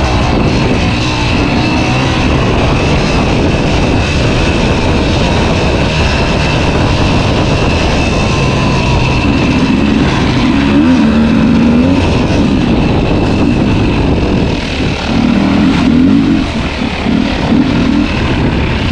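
Two-stroke dirt bike engine running under load, its revs rising and falling over and over as the bike is ridden.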